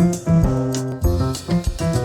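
Instrumental music with a steady beat and chordal instruments, played back through studio headphones and picked up by microphones placed at the ear cups.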